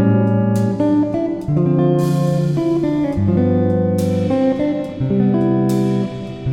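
Background instrumental music led by plucked guitar, with sustained chords changing about every second or two.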